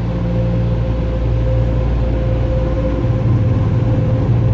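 Touchless car wash's dryer blowers and machinery running, heard from inside the vehicle's cabin: a steady hum with a constant mid-pitched tone above it. Its low part shifts and grows slightly louder about three seconds in.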